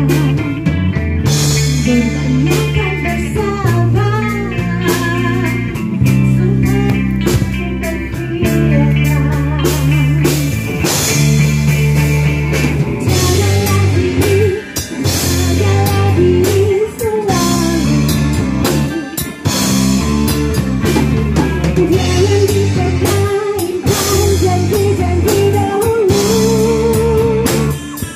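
Live amplified band playing a song: electric guitars, bass guitar and drum kit, with a woman singing into a microphone.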